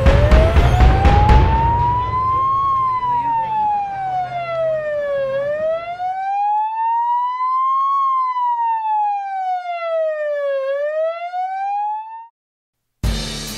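Ambulance siren wailing, its pitch sliding slowly up and down, each rise or fall taking about two and a half seconds. Other noise lies under it for the first half, and it cuts off shortly before the end.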